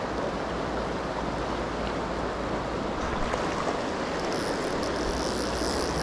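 Fast, shallow mountain river rushing steadily over a stony bed and riffles. About four seconds in, a higher hiss joins the rush of the water.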